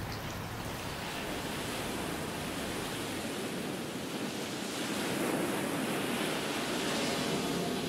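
Ocean waves washing in: a steady rush that swells about five seconds in.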